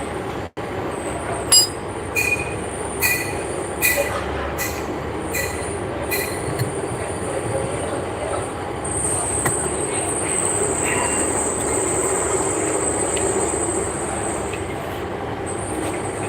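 Metal struck about eight times at uneven intervals, each hit ringing briefly, as parts of a truck starter motor are worked on. From about nine seconds in, a steady high-pitched whine runs over a constant mechanical noise.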